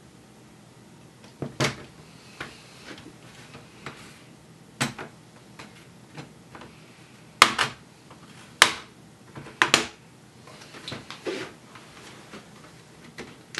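Plastic retaining clips of a Dell Latitude 3540 laptop's palm rest snapping loose as a plastic pry tool is worked along its edge. There are about five sharp snaps, some in quick pairs and the loudest in the second half, with light scraping of plastic on plastic between them.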